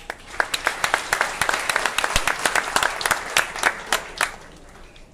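Audience applauding, with sharp individual claps close by standing out over the crowd's clapping; it dies away about four seconds in.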